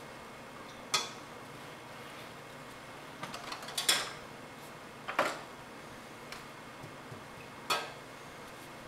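Sharp clinks and taps of hard objects knocking together: one about a second in, a quick run of them around three to four seconds, a pair at five seconds and one more near the end.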